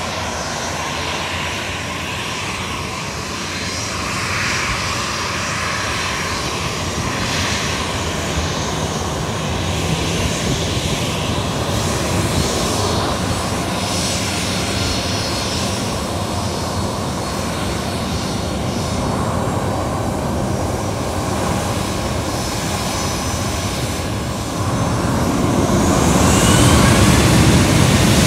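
Boeing 737-800's CFM56 turbofan engines running at low power as the jet taxis and turns on the runway. Near the end they grow louder with a rising whine as thrust is brought up.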